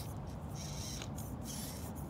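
Axial SCX24 mini RC crawler's small electric motor and gears whining in two short bursts as the throttle is blipped, over a steady low rumble.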